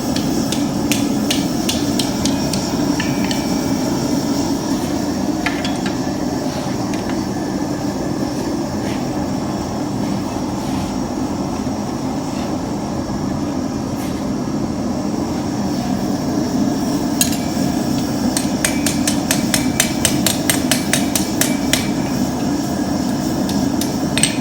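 Hammer blows on steel as scrolls are formed, in a quick run at the start, a few single strikes in the middle, and a fast run of about four or five blows a second over the last six seconds. A steady roar, typical of a running forge, lies under the strikes.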